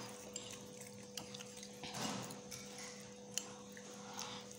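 Faint, scattered clicks of metal spoons against ceramic bowls as noodles are eaten, with a soft eating noise about two seconds in, over a faint steady hum.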